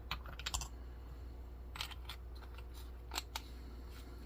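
Light clicks and short scrapes of a flashlight's batteries and tail cap being handled as the tail cap is screwed back on, in a few scattered bursts.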